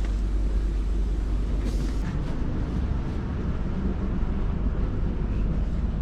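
Bulgarian State Railways passenger train making a steady low rumble, with a few faint ticks and rattles over it.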